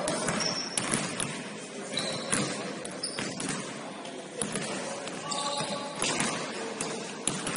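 Basketball bouncing on a gym floor in irregular thumps, with short high squeaks and voices in the background.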